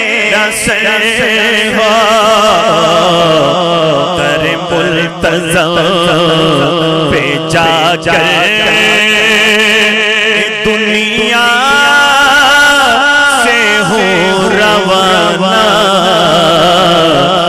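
A man singing a naat, an Urdu devotional poem, into a microphone: one long melismatic line whose notes waver and bend in ornamented runs.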